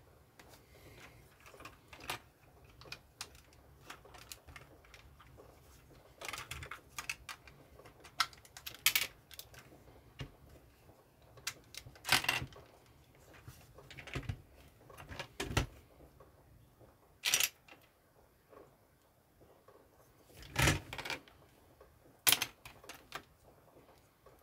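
Plastic LEGO bricks clicking and knocking as they are handled and pressed together by hand: irregular small clicks with pauses, and a handful of louder snaps.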